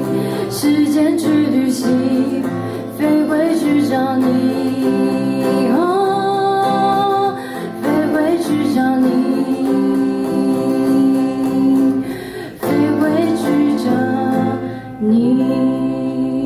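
A singer performing a song to guitar accompaniment, holding long melodic notes with brief breaths between phrases.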